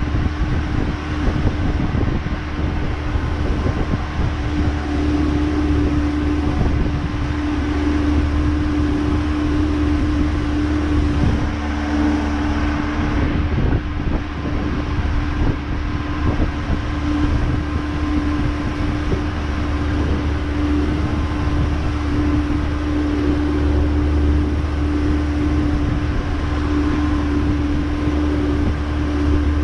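Haines Hunter 550C's boat engine running steadily at low revs while under way: an even low hum with a held droning tone above it, with no revving.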